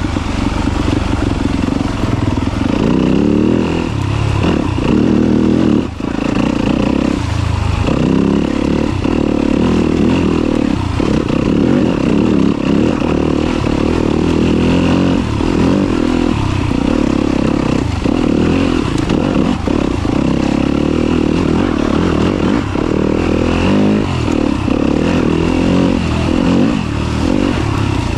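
Yamaha YZ250FX four-stroke single-cylinder dirt bike engine running at trail-riding speed, its note rising and falling with frequent brief dips as the throttle is rolled off and back on.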